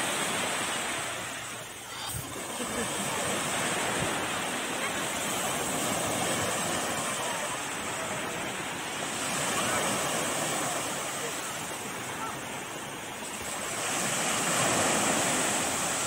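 Small sea waves breaking and washing up a sand-and-pebble beach, the surf swelling and easing every few seconds.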